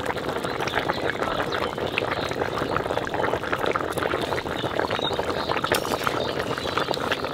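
Fish curry boiling hard in a large aluminium kadai: a steady, dense bubbling with many small pops, the curry at its final boil.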